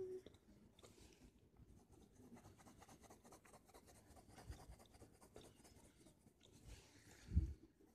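Wax crayon scratching faintly and unevenly across lined notebook paper as the hair is shaded in. A single dull, low thump comes about seven seconds in.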